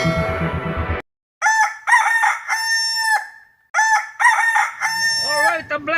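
Rooster crowing twice, each crow a long call that rises and then holds. Music cuts off just before the first crow.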